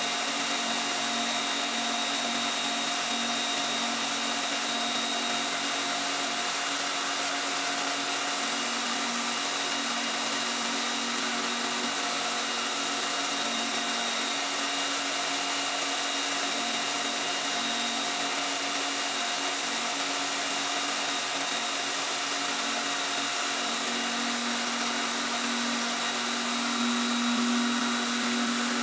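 Tool post grinder running steadily with its grinding wheel spinning: an even motor hum and whine, with a few held tones over a steady hiss.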